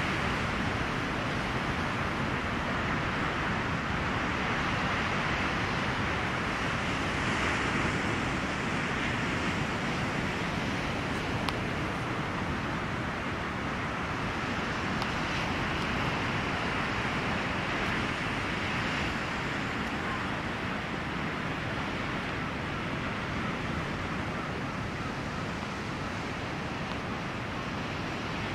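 Steady rushing noise of a rough sea and wind, with no distinct engine or other events, swelling a little now and then.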